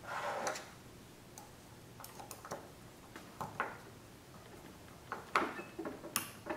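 Small steel tool parts being handled as a crowning cutter is fitted onto its pilot and its set screw secured: a short scrape at the start, then scattered light metallic clicks, bunching together near the end.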